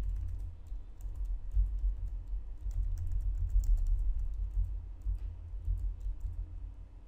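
Computer keyboard typing: a run of quick, irregular keystroke clicks, over a steady low hum.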